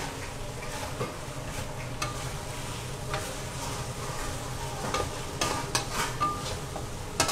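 Metal spatula stirring and scraping chicken pieces through a thick rendang spice paste in a stainless steel wok, over a steady sizzle from the frying paste. The spatula knocks against the wok now and then with short clinks.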